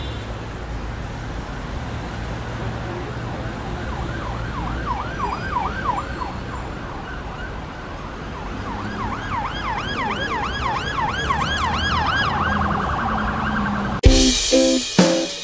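Low road-traffic rumble with an emergency siren in fast rising-and-falling yelps, heard twice, the second run longer and louder, ending in a short steady tone. Near the end, louder plucked-string music with a beat cuts in.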